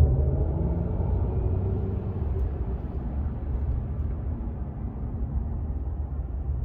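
Steady low road and tyre rumble inside the cabin of a Mercedes-Benz EQS electric sedan as it drives along, with no engine note.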